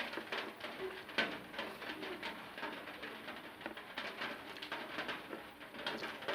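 Close-up eating sounds: wet mouth clicks and smacks while chewing rice and egg curry, with low cooing in the background.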